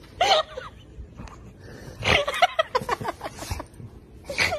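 Pit bull-type dog vocalizing in short grumbles and whines: one brief grumble just after the start, then a run of quick grumbling bursts with snorts from about two seconds in.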